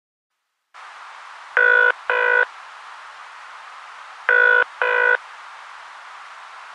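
Telephone ringing heard down the line as if through a handset: two double rings, ring-ring, each pair a couple of seconds apart. They sit over a steady line hiss that starts just under a second in. The sound is thin, with no bass.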